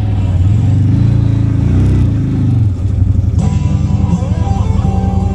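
CFMoto ZForce 950 HO EX UTV's V-twin engine running on the trail, its revs rising and falling. A little over three seconds in, background music starts abruptly over the engine.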